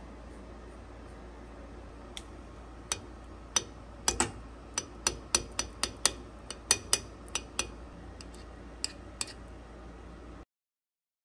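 Metal spoon clinking and tapping against a glass dish in a quick, irregular series of sharp ticks while spreading powder over soft mochi, then the sound cuts off suddenly near the end.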